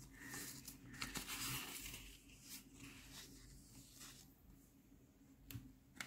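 A sheet of drawing paper being moved and slid around on a table: faint rustling and sliding through the first couple of seconds, then a few light taps.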